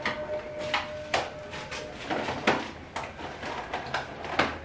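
Plastic takeaway food containers and bags being picked up and put down on a counter while it is cleared: a string of separate knocks, clicks and rustles.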